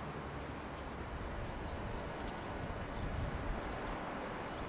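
Steady outdoor background rumble with a bird calling over it. It gives a high rising whistle about two and a half seconds in, a quick run of short high notes, and another rising whistle near the end.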